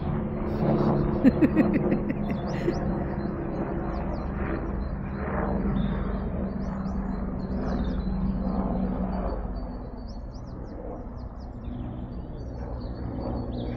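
Open-field ambience: small birds chirping on and off, wind rumbling on the microphone, and a steady low hum that fades out about ten seconds in.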